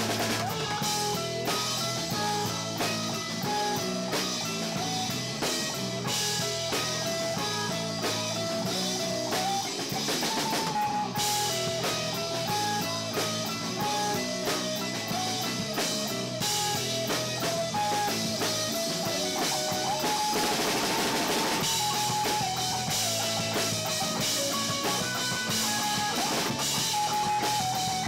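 A live rock band playing: drum kit and guitar, the guitar picking a stepping melody over the beat, with a bright cymbal wash swelling about twenty seconds in.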